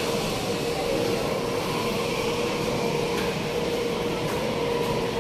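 Steady rushing background noise with a constant, unchanging mid-pitched hum running through it, and a few faint ticks.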